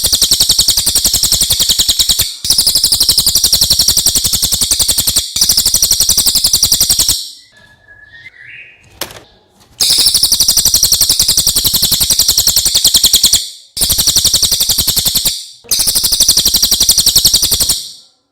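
Cililin (serindit) song: long, very rapid, buzzy high-pitched trills in phrases of two to four seconds, separated by short breaks, with a longer pause in the middle.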